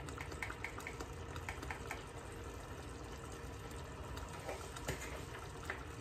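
Mutton chops and curry spices cooking in a stainless saucepan, a low steady sizzle and simmer, with a few faint light ticks in the first two seconds and a faint steady hum underneath.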